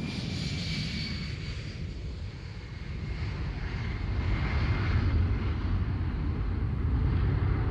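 Boeing 747's four jet engines at takeoff power during the takeoff roll: a steady jet roar with a high whine in the first couple of seconds, growing louder about halfway through.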